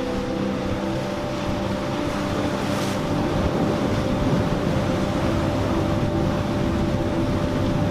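Motorboat engines running with a steady drone, over wind and surf noise. It grows a little louder about three seconds in.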